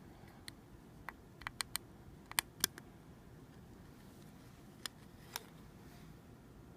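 Sharp clicks and taps of a CPU, heatsink and mounting bracket being handled and fitted together: about a dozen separate clicks, bunched together in the first half and two more near the end.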